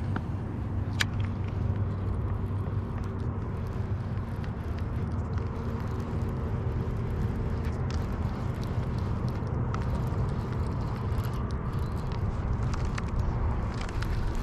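A boat motor running with a steady low hum, with a few faint clicks over it.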